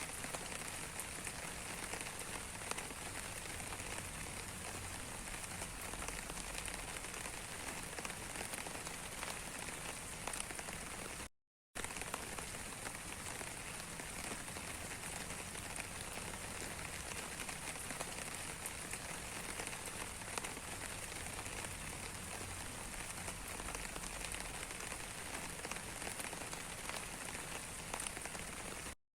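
Steady rain falling, an even hiss dotted with the fine patter of individual drops. It cuts to silence for a split second about eleven seconds in and again near the end.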